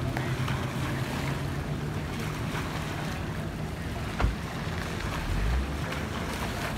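Aquaduck amphibious tour bus motoring away across the water, its low engine drone fading after about four seconds. Waves wash over the boat ramp and wind buffets the microphone, with a brief knock about four seconds in.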